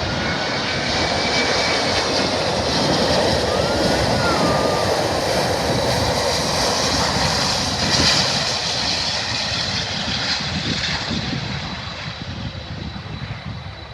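Jet noise from large four-engine airliners passing near the airport, building to its loudest about eight seconds in and then fading away.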